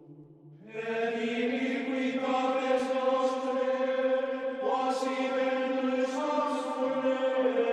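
Background choral chant: voices holding long sustained notes that enter just under a second in and move to new pitches about halfway through and again near the end.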